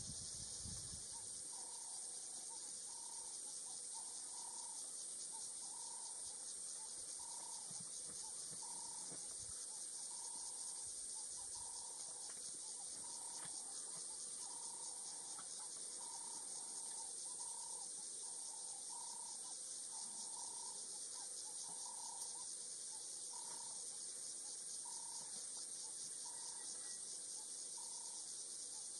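Steady, high-pitched insect chorus buzzing without a break, with a bird repeating a short call about once or twice a second.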